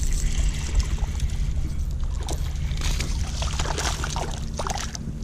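Water splashing and sloshing against a kayak, with irregular splashes and knocks from about two seconds in, over a steady low wind rumble on the microphone.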